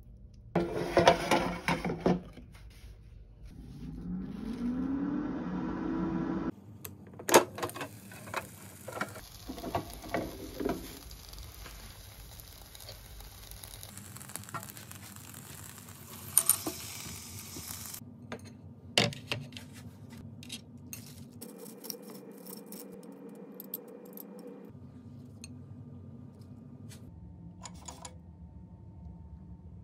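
Tongs clinking and scraping against a COSORI air fryer's nonstick basket as chicken pieces and onions are stirred, in a few separate bursts of clatter, the loudest near the start. Near the end the cooked food slides out of the tipped basket.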